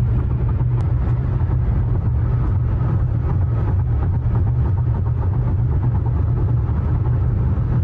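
Car tyres running over a highway's 'reductor de velocidad', a series of spaced raised rumble strips set closer and closer together toward a crosswalk, heard inside the cabin over a steady low drone of road noise.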